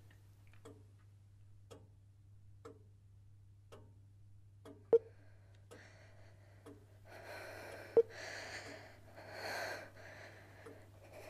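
A clock ticking faintly about once a second, broken by two sharp clicks about three seconds apart. A few seconds of breathy hissing build up around the second click, over a low steady hum.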